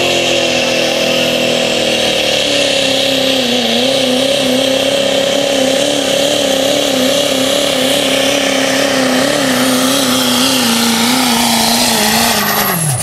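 Chevrolet Silverado pickup's Duramax turbo-diesel at full throttle pulling a weight-transfer sled, revs held high with a steady high turbo whine. From a few seconds in the revs waver up and down under load, and near the end they drop sharply as the throttle is cut at the finish of the pull.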